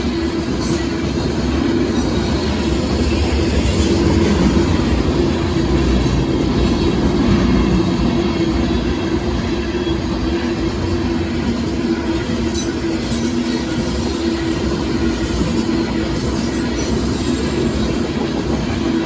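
Union Pacific freight train of loaded gravel hopper cars rolling steadily past on the track, wheels running on the rails, slightly louder a few seconds in.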